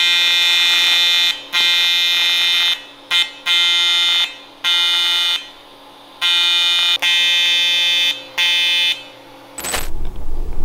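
AC TIG welding arc buzzing steadily as a crack in a cast-aluminium transmission case is welded. It comes in about six bursts of one to two seconds as the arc is struck and broken. Near the end there is a click, then a low rumble.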